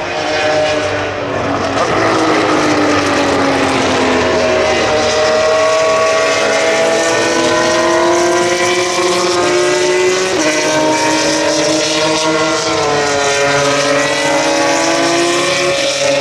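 Several racing car engines running together at fairly steady revs, their pitches drifting slowly up and down rather than revving sharply through the gears.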